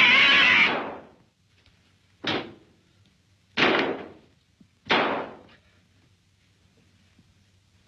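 A loud crash lasting about a second, then three sharp bangs about a second and a quarter apart, each ringing off briefly.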